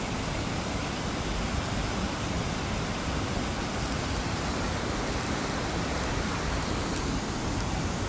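Steady, even rush of water from a waterfall and the stream flowing over rocks below it.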